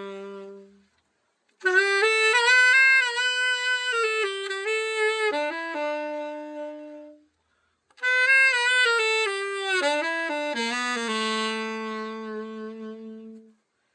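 Evette Schaeffer tenor saxophone, just through a full overhaul, played solo: two melodic phrases of single notes with short silent breaths between, each ending on a held low note.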